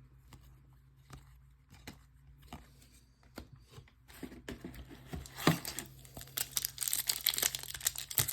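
Foil wrapper of a trading-card pack being torn open and crinkled, starting about halfway through after a few light clicks, and getting busier towards the end.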